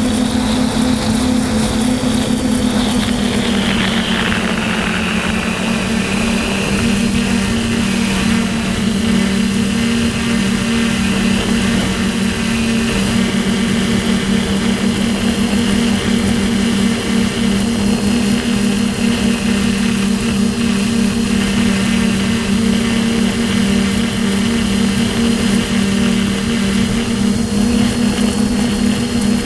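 DJI F450 quadcopter's brushless motors and propellers humming steadily in flight, heard from on board, with wind noise over the microphone. The pitch drops a little about four seconds in, then holds.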